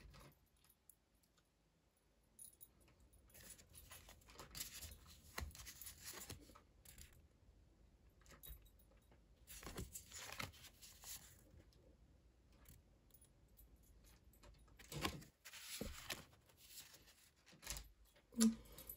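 Oracle cards being handled: stiff cards sliding off the stack and against each other and tapping together, in short quiet bursts of rustling and clicks. A brief low hum-like sound near the end.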